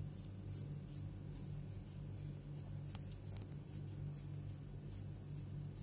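Steady low hum with faint, regular high ticks about two to three a second, and a couple of soft clicks about three seconds in; the hand-shaping of the soft dough itself gives no clear sound.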